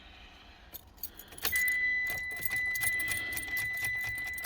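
A bunch of car keys jangling and clinking. A steady high-pitched tone joins in about a second and a half in.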